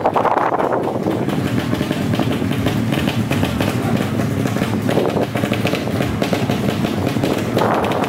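Motorcycle engines running, loud and continuous, with voices mixed in.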